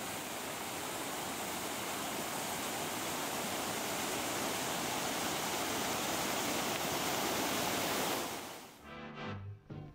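Fountain jets and arcing sprays splashing into a pool: a steady rush of falling water. Near the end it fades out and brass music begins.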